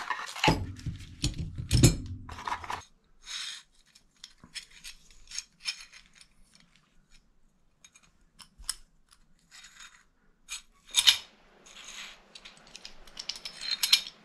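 A cabinet hardware drilling jig being slid out of its cardboard box, then handled: scattered clicks and clacks of its metal and plastic parts, with a sharper knock about eleven seconds in.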